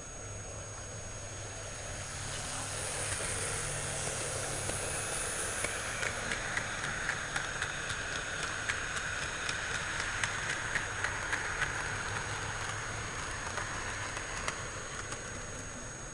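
N-gauge model freight train, Wamu 80000 boxcars behind triple-headed EF66, EF64 and EF65 electric locomotives, running past: a steady hum of motors and wheels that builds over the first few seconds and fades near the end. Through the middle, the wagons' wheels click over the rail joints about two to three times a second, the distinctive Wamu 80000 joint sound.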